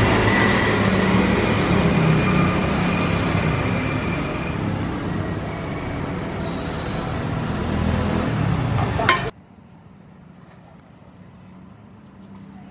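An engine running with a steady low note and some higher whining tones; it cuts off abruptly about nine seconds in, leaving only a faint low hum.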